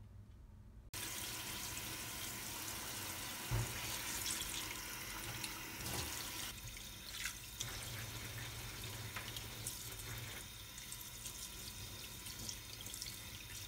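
Water running into a steel sink onto chicken livers in a stainless mesh colander as they are rinsed by hand. It starts suddenly about a second in, and a few knocks and splashes come through, the loudest about three and a half seconds in.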